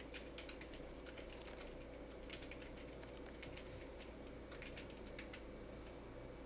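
Faint, irregular clicks, several a second in loose clusters, over a steady low hum.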